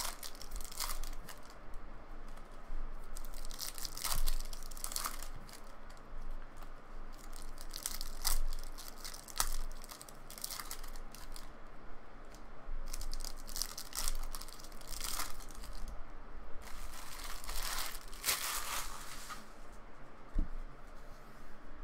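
Foil baseball card pack wrappers being torn open and crinkled by hand, in irregular rustling bursts every few seconds.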